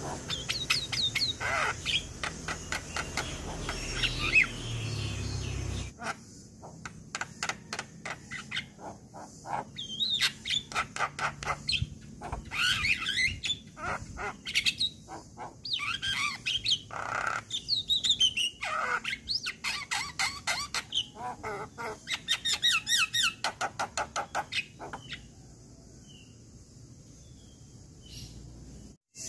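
Male Javan myna singing: fast runs of chattering notes mixed with rising and falling whistles, in bouts. The song stops about four seconds before the end.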